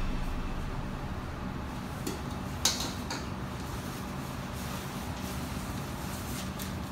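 Background music fading out, then a steady low hum with a couple of faint, sharp clicks about two and a half and three seconds in.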